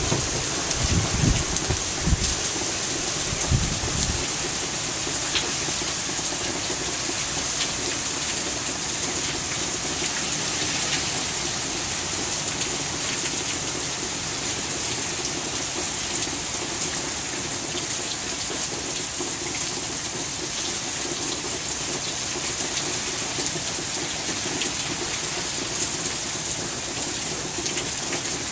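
Steady rain falling hard, with a few low gusts of wind buffeting the microphone in the first few seconds.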